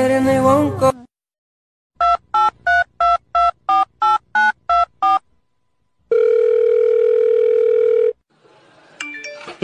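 Telephone keypad tones: about nine short two-note beeps in quick succession, then a steady phone tone lasting about two seconds. A snatch of music cuts off about a second in.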